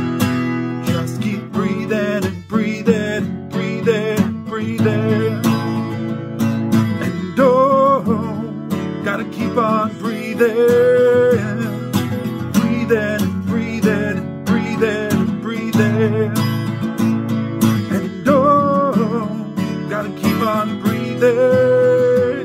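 Acoustic guitar strummed in a steady rhythm, with a voice singing a wavering, drawn-out melody over it at several points.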